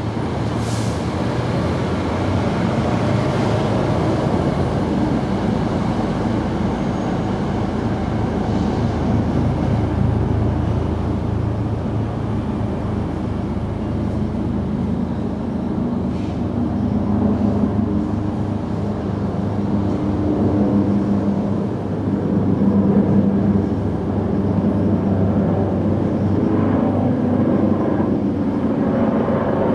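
Steady low mechanical rumble with a hum, its tone shifting slightly about two-thirds of the way in.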